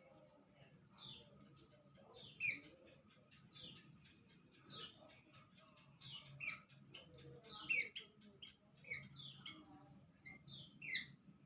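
A bird calling: short, high calls that each sweep downward in pitch, repeated roughly every second, some louder than others.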